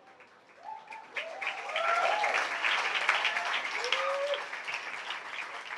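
Audience applause breaking out about a second in after a brief hush at the end of a spoken-word poem, with a few voices calling out over the clapping.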